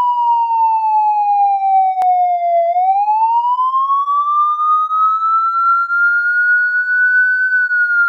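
Police siren sounding a slow wail: one tone slides down, rises over several seconds, then begins to fall again near the end. A brief click sounds about two seconds in.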